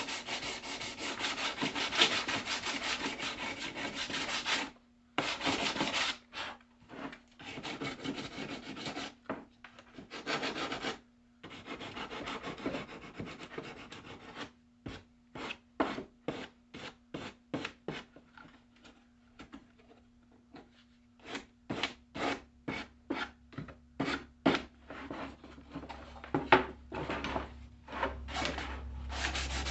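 Wood being sanded or rasped by hand. It starts as a few seconds of continuous scrubbing, then breaks into short, separate back-and-forth strokes, about two a second in the middle stretch.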